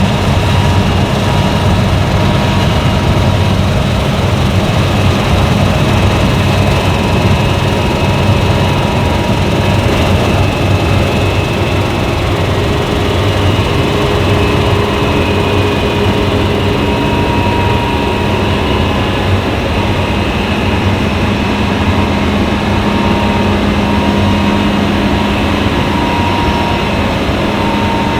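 Fendt Ideal 10T combine harvester running steadily while harvesting wheat: a loud, constant drone with a low hum and a faint steady whine above it.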